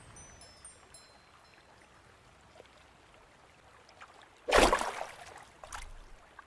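Faint high tinkling chime notes near the start, then after a quiet stretch a sudden loud rush of water about four and a half seconds in that fades over about a second, followed by a smaller one.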